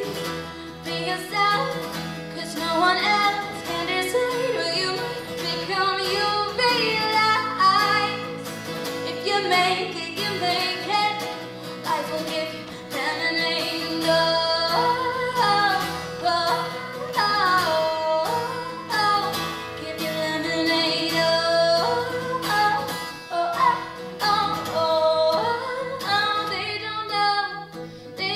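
A woman singing a song into a microphone while accompanying herself on an acoustic guitar.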